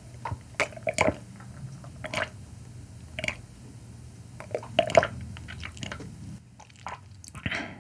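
Close-up mouth sounds of sipping and swallowing white wine from a wine glass: separate wet gulps about one a second, with a louder cluster midway.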